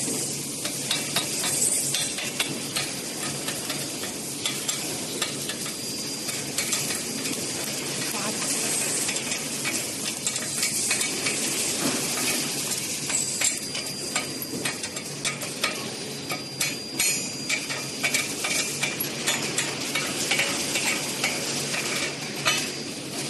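Electric welding arc crackling and sizzling steadily, with irregular sharper pops throughout.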